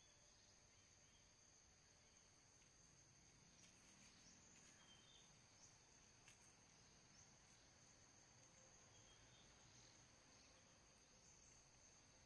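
Near silence, with a faint steady high-pitched insect drone, crickets or similar, and a few faint ticks partway through.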